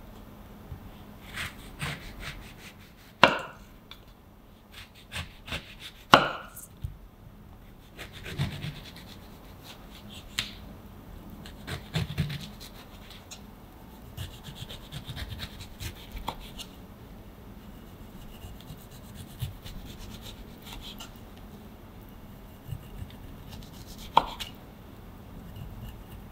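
Kitchen knife cutting the peel off an orange on a wooden cutting board: soft slicing and rustling of the peel, with a few sharp knocks as the blade or fruit meets the board, the loudest near the end.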